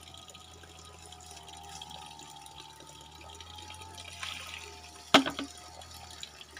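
Bamboo water clapper (pancurendang) in a trickling stream: water runs steadily, then about four seconds in the tube tips and spills with a splash, and just after five seconds it strikes the bamboo below with a single sharp knock and a short ring. It is a water-driven noisemaker meant to scare off rats.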